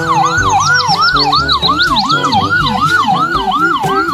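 Ambulance siren in a fast yelp, sweeping up and down about three times a second. Background music with a beat plays underneath.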